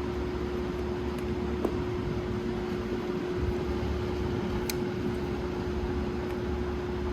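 Steady hum of a small running motor with one held tone. There is a faint click about a second and a half in and a sharp tick near five seconds in.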